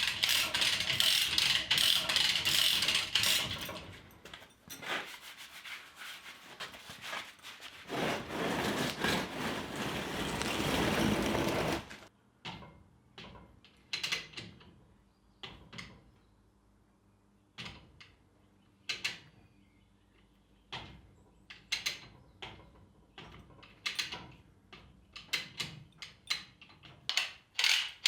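Sealant being applied with a caulking gun: the gun's trigger and ratchet clicking and knocking, with scattered clicks in the second half. In the first twelve seconds there are two stretches of louder rubbing, scraping noise.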